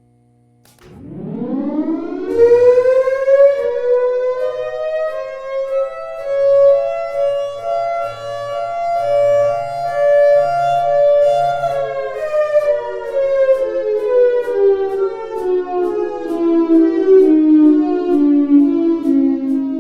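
Motor-driven outdoor warning siren winding up quickly to a steady high tone, holding it for about nine seconds, then slowly winding down.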